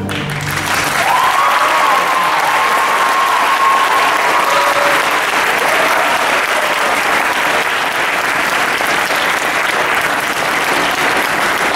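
Audience applauding steadily in a hall as a string orchestra's final chord dies away at the very start.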